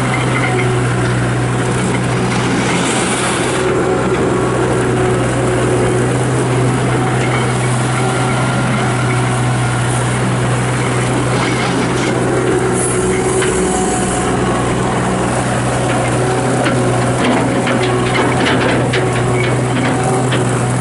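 2003 John Deere 250 skid steer loader's turbo diesel engine running at a steady speed, with two short hissing bursts, one about three seconds in and another around thirteen seconds.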